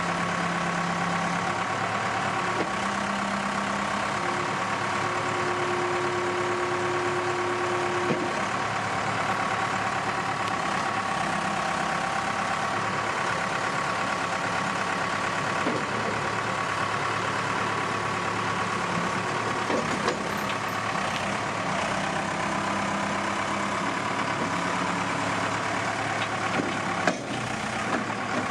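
Diesel engine of a 1995 Case 580SL 4x4 backhoe loader running steadily at idle, with a few faint knocks.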